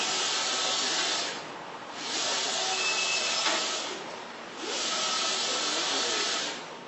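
StormJet wide-format solvent inkjet printer running, its print-head carriage sweeping across the media: a steady hissing mechanical noise that dips briefly about every two and a half seconds.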